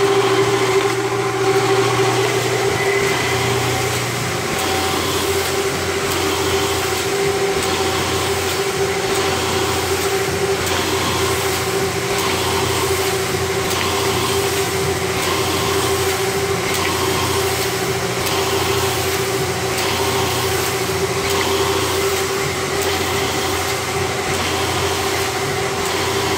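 Harris Macey Omnibinder 9-pocket paper collator running: a steady motor hum with a held tone, under a rhythmic mechanical clatter of its feeders and transport.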